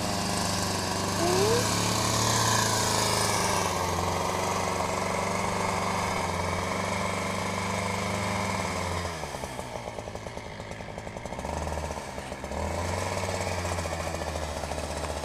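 Chainsaw running steady, its engine dropping to a ticking idle about nine seconds in and picking back up near the end.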